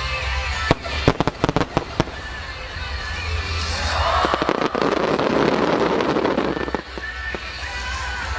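Aerial firework shells bursting: a quick string of sharp bangs about a second in, then a dense wash of many overlapping bursts from about four to seven seconds in, with music playing underneath.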